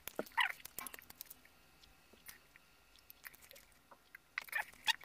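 Close-miked eating sounds: chewing a mouthful of noodles, egg and tomato, with scattered sharp clicks of metal cutlery against a ceramic plate. Drinking from a glass near the end.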